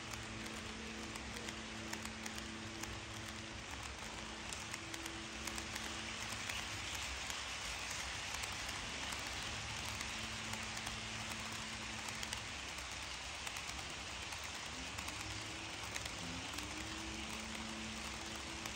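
A long string of model covered hopper cars rolling past on sectional track, their wheels making a steady, rapid clicking rattle. A faint hum runs underneath, dropping out in the middle and gliding up in pitch in the later seconds.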